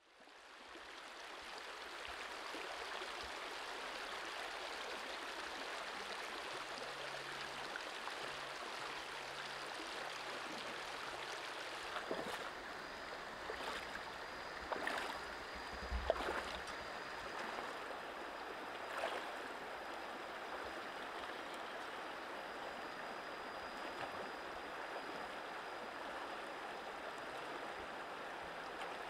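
Shallow river running over rocks: a steady rushing that fades in over the first couple of seconds. A few short, sharp sounds stand out between about 12 and 19 seconds in, the loudest near 16 seconds.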